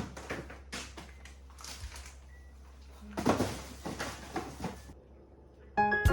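Household handling sounds: a series of light knocks, clicks and rustles over a low steady hum, with a quieter stretch near the end.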